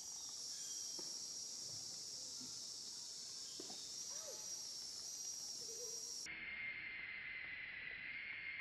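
Steady high-pitched drone of an insect chorus, cicadas or crickets; about six seconds in it gives way to a lower-pitched drone. A few faint small clicks and chirps sound over it.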